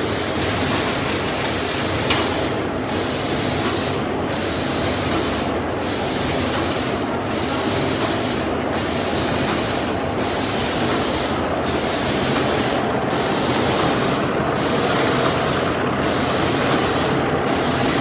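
Wet wipes production machine running steadily, with a regular cycle repeating about every one and a half seconds.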